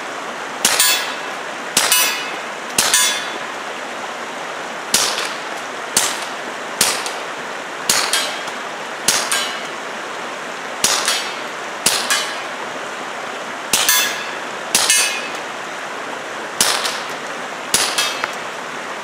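Taurus TX22 .22 LR pistol fired through an AliExpress fuel-filter suppressor, with standard (not subsonic) ammunition: about fifteen shots, roughly one a second, with short gaps after the third and the thirteenth. Each shot is sharp and short with a brief echo, over a steady rushing background.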